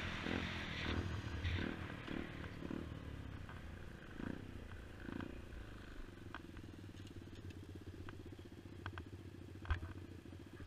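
Skyteam mini motorcycle's small engine running steadily as it rides, heard faintly, with scattered light clicks and knocks from the bike.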